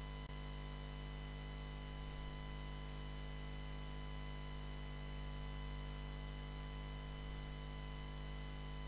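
Steady electrical mains hum and buzz with many overtones, unchanging throughout, with no other sound.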